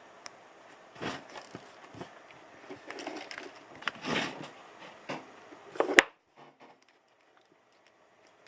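Handling noises: an irregular string of clicks and rustles, ending in a sharp click about six seconds in, after which the sound nearly cuts out.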